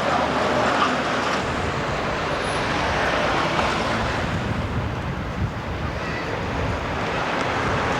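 Steady street traffic noise: an even wash of passing vehicles, with no single engine or event standing out.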